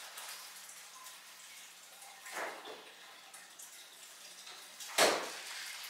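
Mostly quiet, with one soft short sound about two and a half seconds in and a sudden sharp knock about five seconds in, the loudest thing here.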